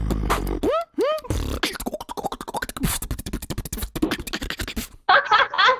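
Beatboxing: a sustained low bass buzz with swooping vocal glides, then a fast run of clicks and snare-like hits that stops about five seconds in. A voice comes in near the end.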